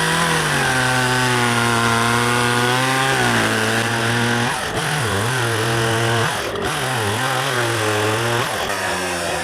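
Chainsaw cutting logs for firewood. The engine holds a steady high note for the first few seconds, then drops and picks up again several times as the chain bites into the wood.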